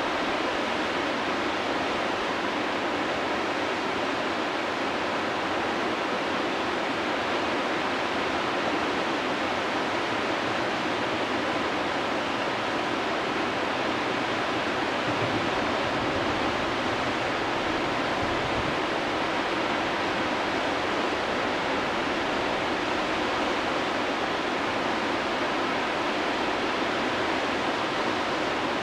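Whitewater rapids of a river wave, a steady rushing roar of churning water with no change in level.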